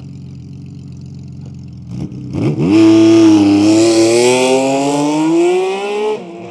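Honda CBX1000Z's air-cooled inline-six, breathing through its six-into-six exhaust, idling steadily, then revved hard about two seconds in. The pitch jumps up and climbs slowly for about three seconds, then drops back sharply near the end.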